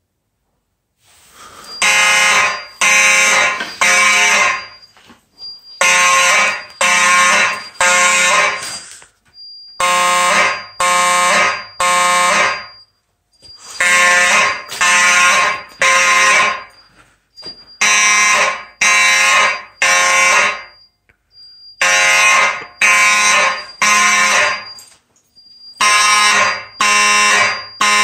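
Simplex fire alarm horns blasting in the temporal-three evacuation pattern, starting about a second in: three harsh buzzing blasts, a pause, and the group repeating about every four seconds. A thin high tone carries on between the blasts.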